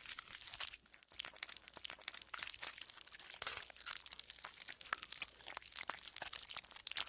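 Green slime being squeezed and kneaded by hand, giving a steady run of fine crackling, squeaking and squelching pops, with a short lull about a second in.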